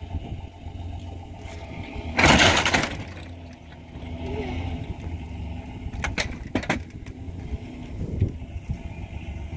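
Pickup truck engine idling with a steady low hum. A loud rushing burst comes about two seconds in, and a few sharp clicks follow later.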